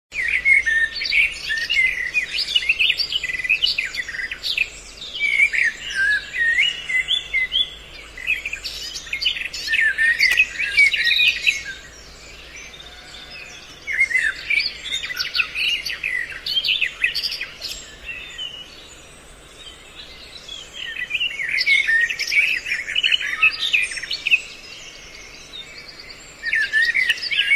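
Birds chirping and singing: rapid high twittering in bouts, with two short lulls near the middle.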